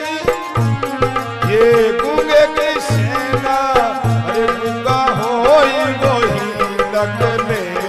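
Indian devotional bhajan music: a hand drum of the tabla kind plays a repeated beat under a melody that bends and slides in pitch.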